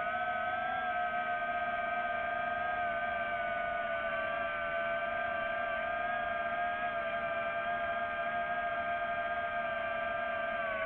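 Multirotor drone's motors and propellers whining steadily, heard from the drone's own camera: a few held pitches that waver slightly together and dip a little near the end.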